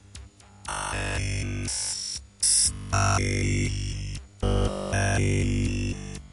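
Electronic sci-fi sound effect: choppy synthesized tones and glitchy stutters that jump abruptly in pitch, starting just under a second in, with a few brief cut-outs.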